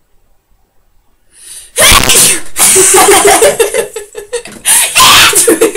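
A loud, deliberately provoked sneeze about two seconds in, after a short intake of breath. Loud laughing follows, with another loud burst about five seconds in.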